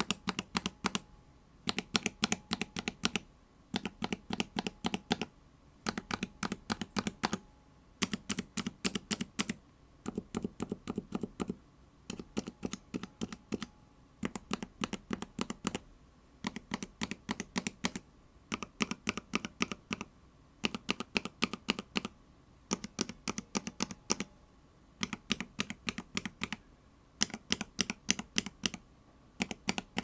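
Mechanical keyboard switches in an Akko x MonsGeek switch tester, fitted with clear keycaps, pressed by finger. They clack in quick runs, one switch after another, each run about a second and a half long with short pauses between.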